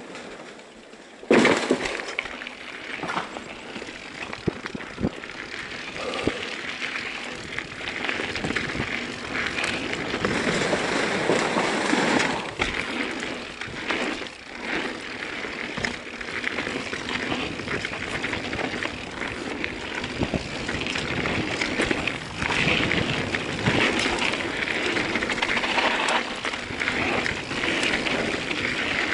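Mountain bike rolling down a dirt singletrail: tyre noise on soil and roots with the bike rattling and knocking over bumps, and a sharp jolt about a second in. The noise grows louder as the bike picks up speed.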